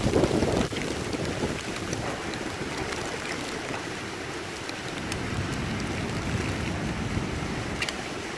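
Typhoon wind and heavy rain. A strong gust buffets the microphone in the first second, then wind-driven rain keeps up a steady rush, with scattered sharp ticks of rain striking.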